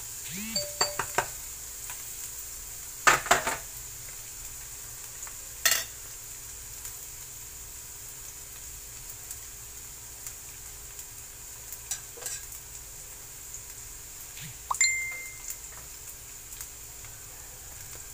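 Minced garlic sizzling in oil in a non-stick frying pan, a steady hiss. A few sharp clinks and knocks of a utensil or container against the pan come through it.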